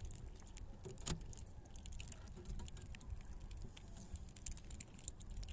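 Light scattered clicks and rustling from a freshly caught fish being handled on the fishing line, with one sharper click about a second in.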